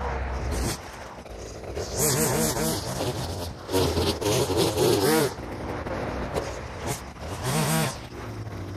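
Gas string trimmer (weed eater) idling, throttled up three times in short bursts, each a second or so long, as it cuts thick grass and weeds.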